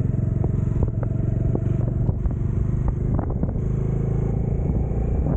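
A road vehicle's engine running steadily on the move, with scattered sharp knocks over it.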